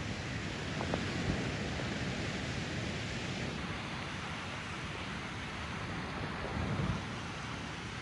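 Wind rushing over the microphone of a handheld phone, a steady noisy hiss with a couple of faint clicks about a second in.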